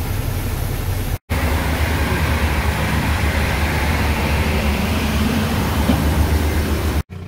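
Soybeans pouring out of a hopper trailer's gate and through a steel dump-pit grate, as a steady hiss over the low, even hum of an engine running. The sound cuts out for an instant about a second in.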